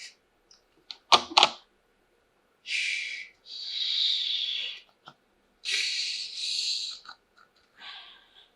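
Handling of plastic toy pieces and their packaging: two sharp plastic clacks a little over a second in, then four hissy rustles of plastic wrapping, each lasting half a second to just over a second.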